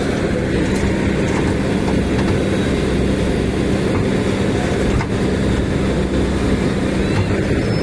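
Heavy vehicle engine running steadily, a constant drone over a low rumble, with a few faint knocks about five seconds in.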